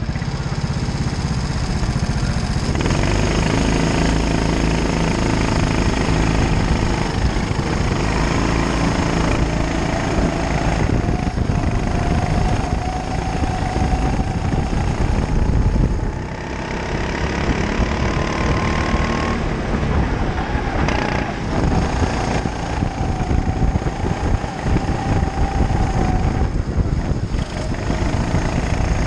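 A go-kart's engine heard from on board, revving up along the straights and easing off into the corners. It picks up sharply about three seconds in as the kart pulls away.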